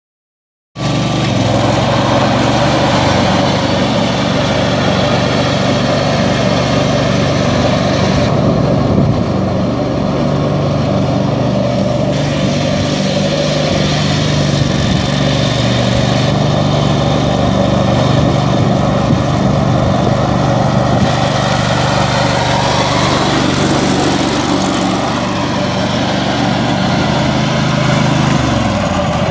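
The 19 HP Kawasaki V-twin gas engine of a 2003 Wright Stander stand-on mower running steadily while the mower is driven, starting about a second in.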